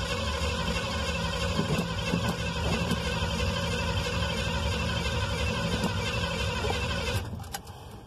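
Chevrolet pickup's engine running steadily, heard from inside the cab, with a wide hiss over a low drone; the owner suspects the engine is blown. The sound drops off sharply about seven seconds in.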